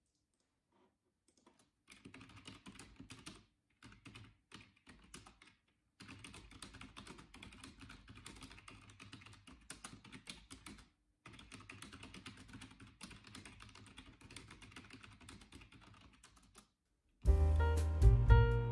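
Typing on a computer keyboard: quick runs of key clicks in bursts with short pauses, starting about two seconds in. Near the end, louder music with piano starts and takes over.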